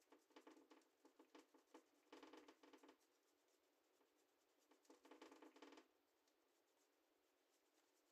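Near silence with faint scratchy strokes of a large filbert brush dragging thin acrylic paint across canvas, in two short spells about two and five seconds in, with a few soft ticks before them.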